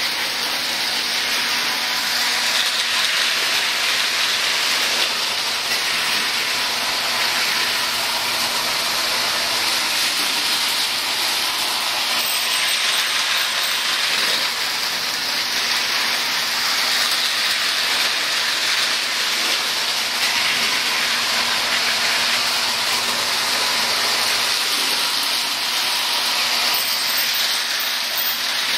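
Lionel and Marx O-gauge toy trains running on three-rail tinplate track: a steady, even running noise of their motors and wheels on the metal rails.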